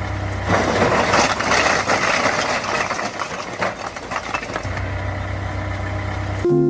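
A motor running with a steady low hum under a rough, rattling noise.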